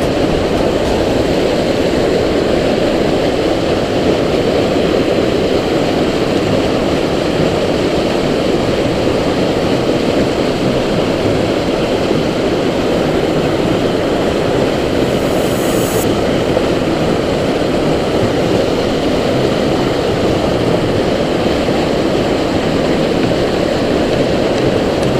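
Steady rush of white water tumbling over boulders in a small rocky stream cascade, close by.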